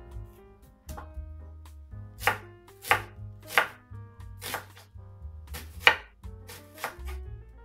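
Kitchen knife cutting an onion on a wooden cutting board: a run of sharp knife strikes, spaced roughly half a second to a second apart, starting about two seconds in.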